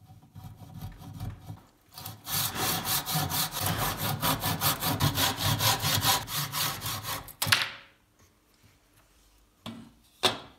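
Hand saw cutting through a clamped wooden block: a few light strokes to start the cut, then fast, even back-and-forth strokes of about five a second. These stop suddenly as the offcut comes free. Two short knocks follow near the end.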